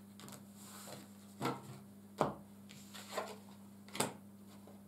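Tarot cards being gathered up off a cloth-covered table and squared into a stack: soft sliding of card on card with four short taps, the loudest a little after two seconds in.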